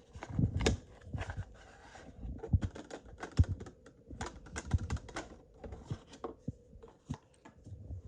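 A wrapped deck of Pokémon trading cards being opened and handled one-handed: a quick, irregular run of clicks, taps and crinkles.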